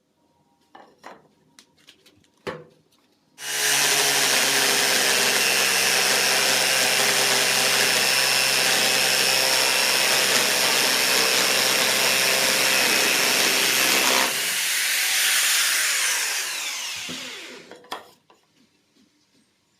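Electric drill motor, set up as a home-made milling machine, switched on abruptly after a few clicks and knocks and running at a steady high speed for about ten seconds. It then winds down, falling in pitch and fading over a few seconds.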